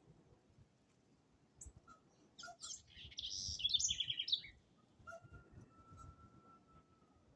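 Wild birds calling in forest: scattered short chirps, a loud cluster of rapid chirping notes in the middle, then one long steady whistled note lasting about two seconds near the end.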